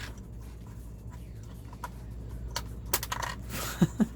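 Small hard plastic LEGO pieces clicking and clattering as they are handled and pressed together: a few scattered sharp clicks, a short rustle, then two short low sounds near the end.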